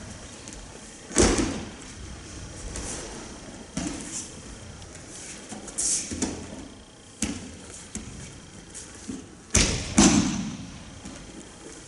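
Aikido throws: bodies and hands slapping down on tatami mats in breakfalls. The heaviest thuds come about a second in and near the end, with a few lighter thumps between.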